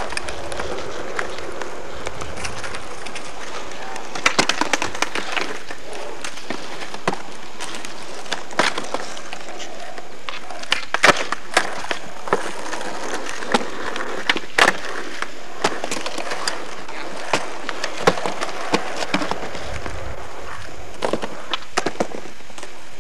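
Skateboard rolling on asphalt, with many sharp clacks and slaps of the board from about four seconds in as the skaters push off, pop the board and land.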